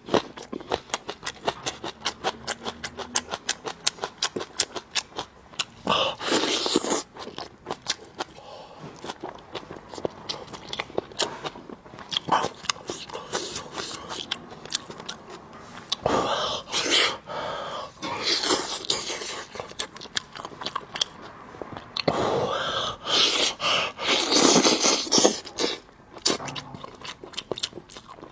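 Close-miked chewing of braised meat ribs: rapid wet mouth clicks and smacks, broken every few seconds by louder, longer bursts of biting and tearing at the meat.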